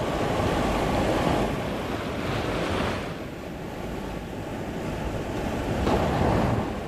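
Sea surf washing over shoreline rocks, with wind buffeting the microphone; the wash swells louder in the first second or so and again near the end.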